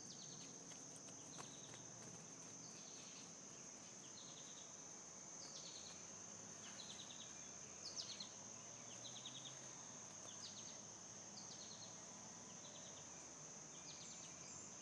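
Faint summer insect chorus: a steady high-pitched drone with short pulsed chirps repeating about once a second.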